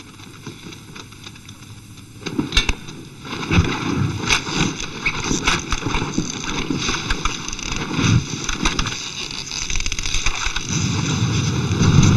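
Old film fight-scene soundtrack: near quiet, then about two seconds in a flurry of sharp clacks and hits over a rushing noise, swelling louder near the end.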